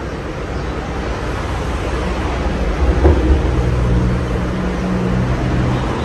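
Casablanca Mercury ceiling fan with a Samsung K55 motor, running with five blades: a steady rush of moving air over a low rumble. A faint low hum comes in about halfway through, and there is a brief knock about three seconds in.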